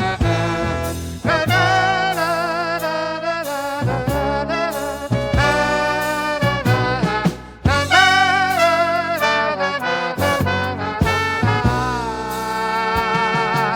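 Swing-style band music with a brass and saxophone horn section playing wavering held notes.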